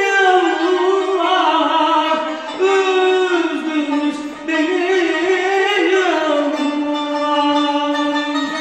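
A man singing a Turkish song in long, held, ornamented notes that slide between pitches, accompanied by a kanun.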